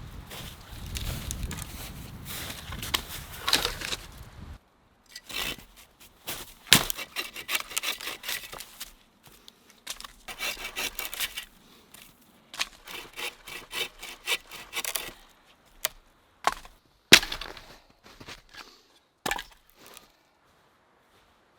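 Firewood being cut by hand: several runs of quick rasping saw strokes through wood, with a few sharp cracks of snapping branches in the later part.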